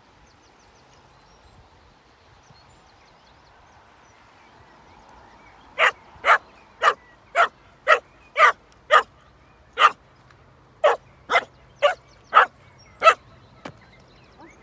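A dog barking repeatedly, about a dozen short sharp barks at roughly two a second, starting about six seconds in with a brief pause in the middle.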